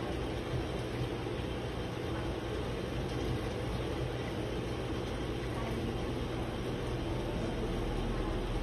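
Steady background noise: a low, even hum under hiss, with no distinct events.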